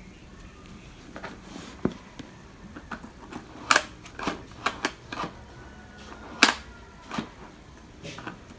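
The black plastic carry handle of a cardboard laptop box being pulled up and snapped back down, making a run of irregular sharp clicks and knocks.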